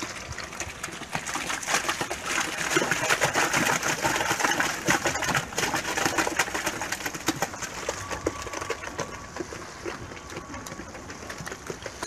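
Barn gutter cleaner running: its chain conveyor dragging manure along the gutter, with a steady run of irregular clanks and rattles from the chain and paddles.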